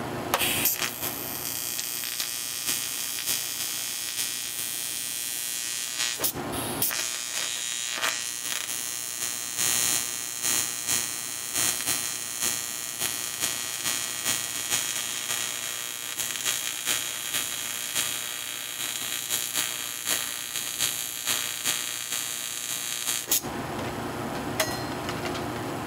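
TIG welding arc with a steady buzzing hiss. It cuts out about six seconds in, strikes again a moment later and runs until shortly before the end.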